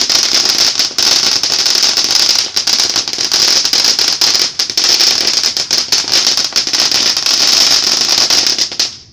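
A firework spraying sparks with a loud, continuous hissing crackle made of many rapid pops, cutting off just before the end.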